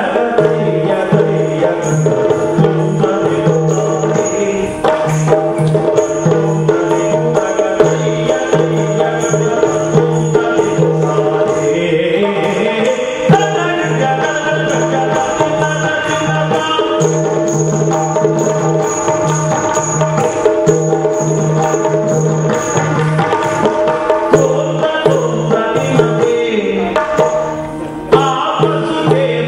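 Yakshagana percussion accompaniment for dance: the chande drum and maddale beating a steady rhythm, with small hand cymbals ringing over a held drone. The music dips briefly near the end.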